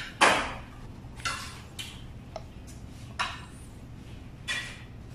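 Metal tweezers clicking and scraping against a clear plastic vial while paper towel packing is pulled out of it. There are about six short sharp sounds, the loudest just after the start.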